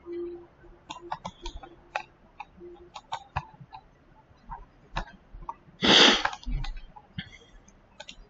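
Scattered computer mouse clicks, with one short, louder throat noise from the person at the computer about six seconds in.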